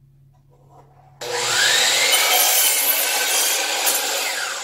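DeWalt 12-inch sliding compound miter saw switched on about a second in, the blade spinning up with a rising whine and cutting through a wooden board as the head is pushed back toward the fence. Near the end it starts to wind down.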